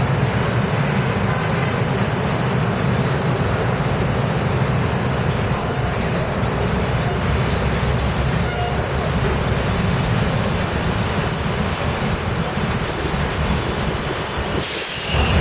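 Double-decker tour bus's diesel engine running as it pulls past at close range, over steady city traffic noise. A short hiss comes near the end.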